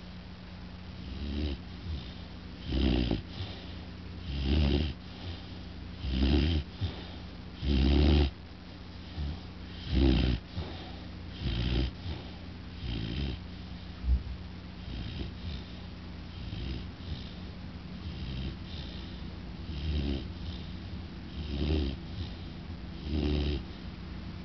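American bulldog puppy snoring loudly in its sleep, one snore about every one and a half to two seconds. The snores are strongest in the first half, turn softer in the middle and grow louder again near the end.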